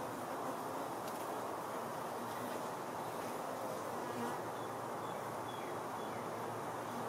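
Honeybees flying around a wooden hive, a steady buzzing hum.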